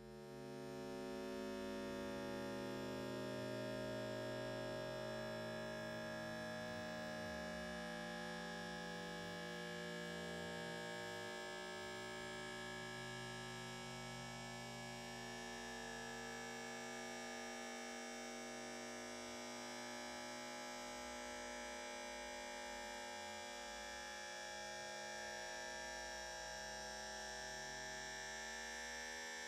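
A human cough time-stretched many times over into a steady drone of held tones that shift slowly in pitch every few seconds.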